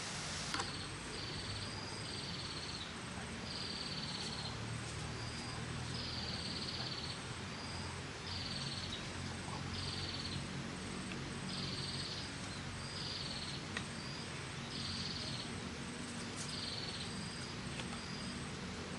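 Animal calls: a high, buzzy call, each under a second, repeats about once a second, with a faint, evenly pulsing trill higher still and a low steady hum underneath.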